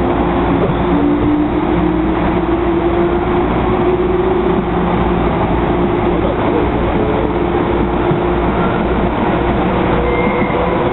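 MTR Kwun Tong Line electric train C278 running, its traction motors giving a steady pitched whine that climbs slightly at first and then holds, over the continuous rumble of wheels on rail.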